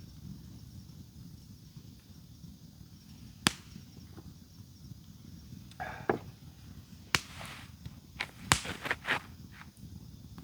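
Several sharp clicks and knocks, the strongest in a quick cluster in the second half, over a low steady rumble.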